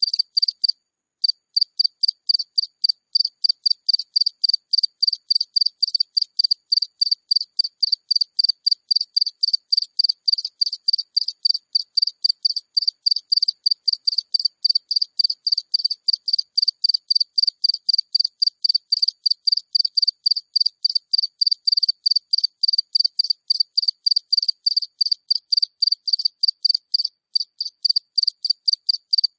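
A single cricket chirping close up: a steady run of short, high chirps at about four a second, with a brief pause about a second in.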